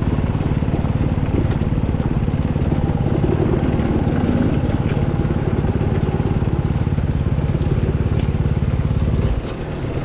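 Enduro dirt bike engine running at low trail speed on a rocky descent, a steady rapid pulsing rumble. It falls quieter near the end as the bike comes to a stop.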